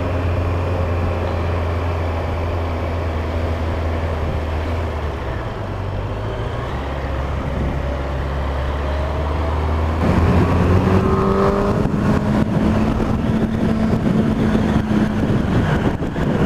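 Yamaha FZ8 inline-four motorcycle engine running under way at a low, steady drone, then about ten seconds in it gets louder and higher in pitch as the bike accelerates, with wind noise over the microphone.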